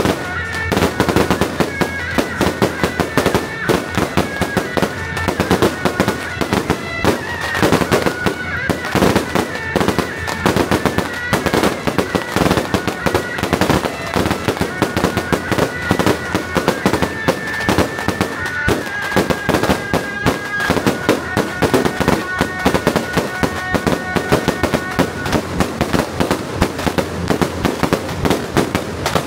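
Firecrackers going off in a continuous, dense crackle of rapid bangs, with steady high pitched tones held over them.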